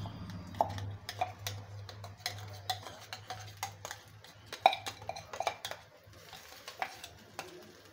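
Steel spoon scraping and tapping against a steel tumbler to knock ginger-garlic paste out into an aluminium kadai: a rapid string of sharp metallic clinks and scrapes, over a low steady hum.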